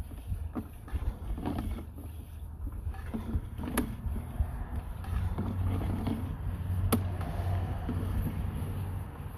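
Sewer inspection camera's push cable being fed out by hand: a steady low rumble with scattered knocks and two sharp clicks, the rumble growing stronger about halfway through.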